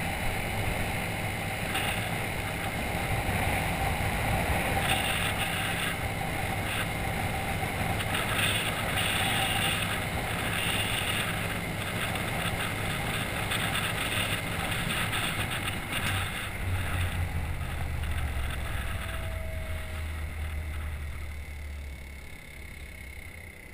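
Small scooter engine running under way, with wind and road noise on the handlebar-mounted camera. The sound drops off near the end.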